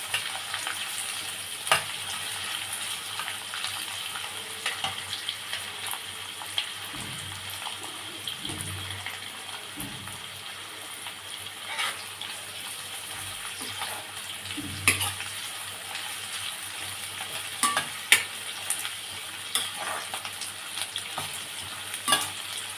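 Onions frying in hot oil in a kadai, a steady sizzle as they brown, with a spatula knocking and scraping against the pan now and then as they are stirred.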